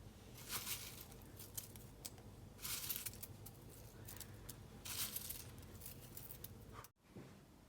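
Faint, light clinks and scrapes of eating utensils against dishes, in a few short bursts about half a second, three and five seconds in.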